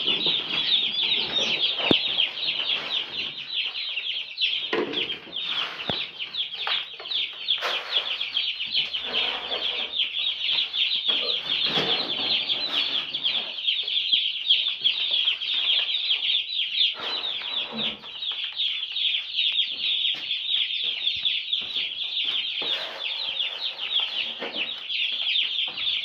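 A crowd of day-old Cobb 500 broiler chicks peeping without pause, a dense chorus of high-pitched peeps, with occasional rustles and knocks underneath.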